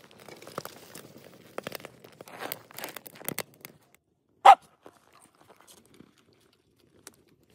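Wooden spoon scraping fried meat and cabbage out of a pan onto a plate, with a run of scrapes and clicks. About four and a half seconds in, a dog gives a single short bark, the loudest sound.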